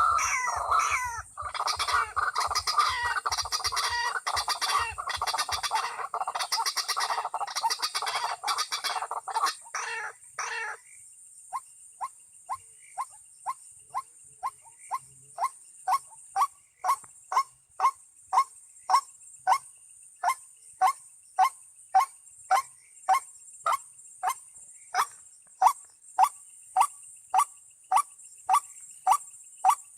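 White-breasted waterhen (ruak-ruak) calls: a dense run of overlapping harsh croaking calls that stops about ten seconds in, followed by a steady, evenly spaced series of short single calls, about three every two seconds. A steady high-pitched hiss runs underneath.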